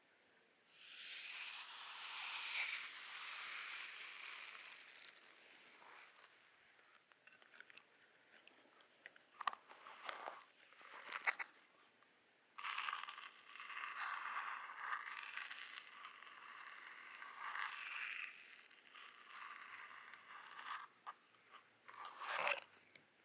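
Scratchy brushing and scraping strokes of an ASMR massage tool, in stretches of several seconds, with a few sharp clicks about ten seconds in and again near the end.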